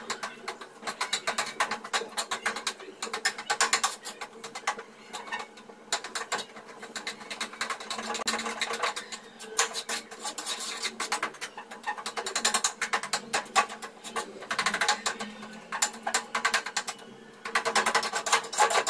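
Spoon stirring and scraping thick arrowroot-and-Fevicol glue paste in a metal pot: a fast, uneven run of scrapes and clicks against the pot's sides, with a few short pauses.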